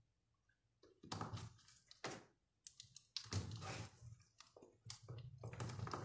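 Utility knife blade cutting and scraping into a bar of soap in short crisp strokes, with shavings dropping. The strokes begin about a second in and come thicker and louder from about halfway.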